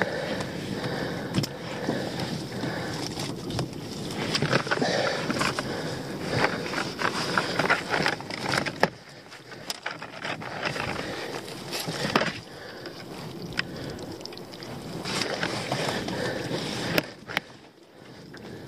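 Handling of a netted lobster pot: the net and rope rustling, with scattered sharp clicks and knocks throughout, over a steady background hiss.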